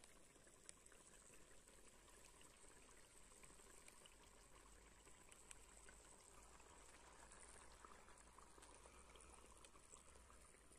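Near silence: a faint, steady sizzle of hot frying oil, with scattered light crackles.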